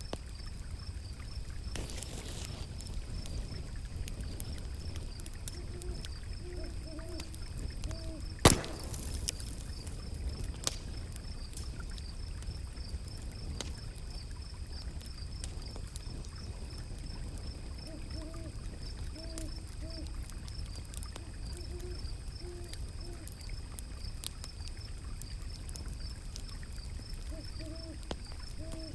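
Wood fire crackling, with scattered small snaps and one loud pop about eight seconds in, over a steady low rumble of flowing river water. A steady high trill runs behind it, and short low hoots come in small groups several times.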